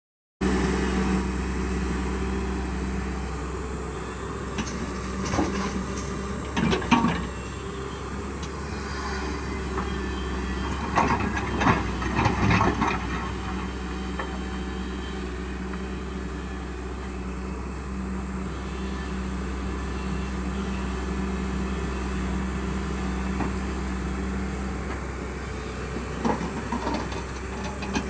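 Excavator engine running steadily, with a few clusters of sharp knocks, around a quarter of the way in, near the middle, and near the end.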